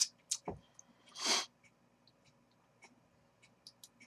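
A man's short, sharp breath through the nose about a second in, then a few faint computer mouse clicks near the end.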